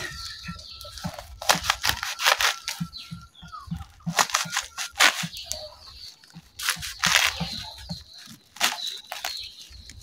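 Kitchen knife chopping fresh papaya leaves on a sack laid over the ground, with no chopping board: crisp, irregular cuts through the leaves, in short runs of several strokes every second or two.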